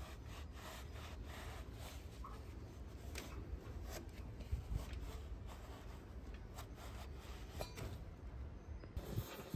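Cloth rag rubbing and wiping round the inside of a ship's air horn's brass housing in short, irregular strokes, scrubbing out grime.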